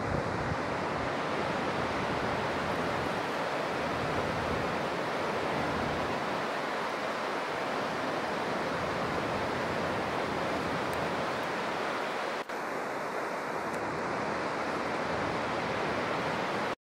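Steady rushing outdoor ambience across a mountain gorge, with wind buffeting the microphone as an uneven low rumble. It dips briefly about twelve seconds in and cuts off abruptly near the end.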